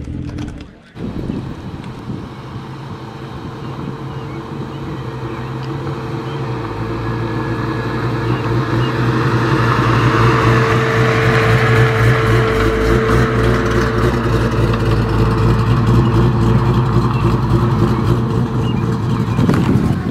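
Classic car engines running at low speed as old cars roll past on gravel, a steady low engine note that grows gradually louder over the first ten seconds and then holds.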